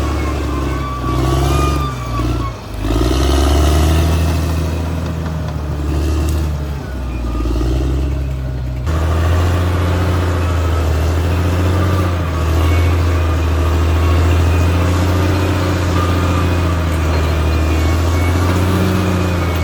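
Caterpillar D6R XL bulldozer's diesel engine working, a loud, steady low drone with a thin whine above it; the level dips briefly about two to three seconds in, and the sound changes abruptly about nine seconds in.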